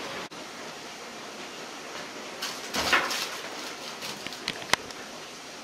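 Handheld phone camera being handled: a brief loud rustle about halfway through, then a few sharp clicks, over steady room hiss.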